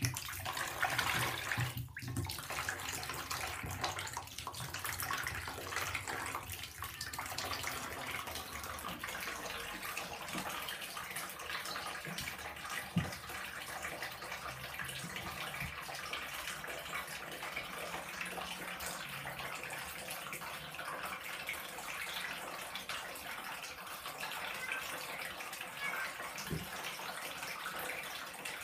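Thin stream of water running from a bath mixer tap and splashing into a bathtub, a steady trickle. A couple of faint knocks come about halfway and near the end.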